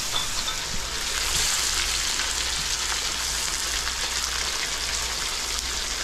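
Lobster and sauce frying in hot woks over gas burners: a steady sizzle.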